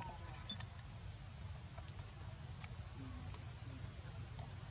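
Faint outdoor ambience: a steady low rumble with a few brief, faint squeaks and chirps and scattered soft clicks.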